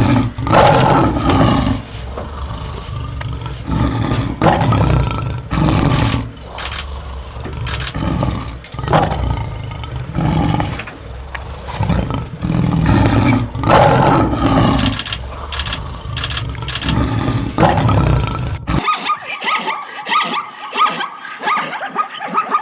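A large wild animal roaring and growling over and over, a deep, loud call every second or two. Near the end it cuts off abruptly and a different sound takes over, a fast, even pulsing.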